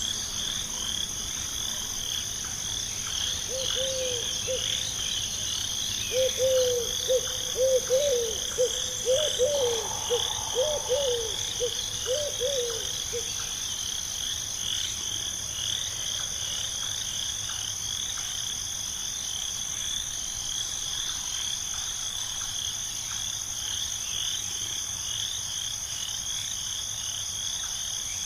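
A frog croaking in a run of short, quick calls, a brief burst then a longer series lasting several seconds, over steady insects trilling that continue throughout.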